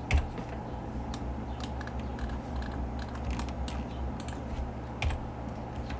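Irregular sharp clicks of computer keys and a mouse being pressed, over a low steady hum.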